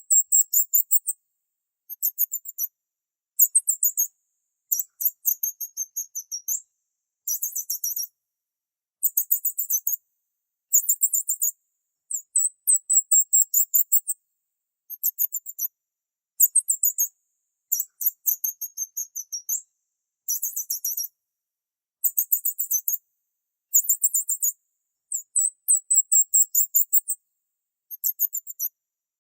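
Bird-chirping sound effect: very high-pitched, rapid chirp trills in short bursts of about half a second to a second and a half, repeated every second or two with complete silence between them.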